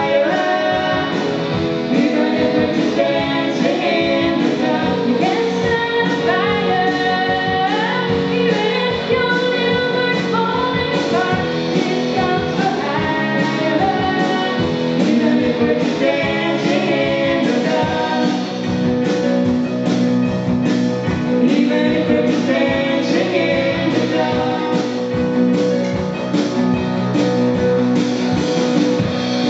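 A song played live by a band with a singer: a sung melody over a steady instrumental backing with a regular beat.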